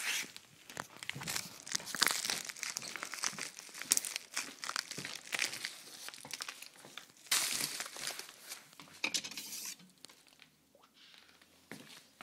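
Mail package's wrapping rustling and crinkling as it is handled, in irregular bursts that die down near the end.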